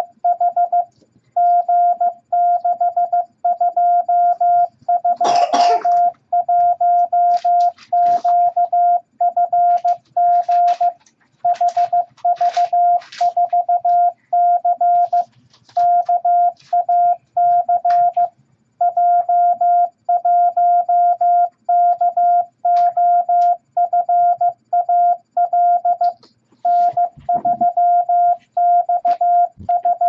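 MFJ-414 Classroom Morse Tutor sending random letters and numbers in Morse code at 15 words per minute: a single beep tone keyed on and off in dots and dashes, with short gaps between characters. A brief rustling noise about five seconds in.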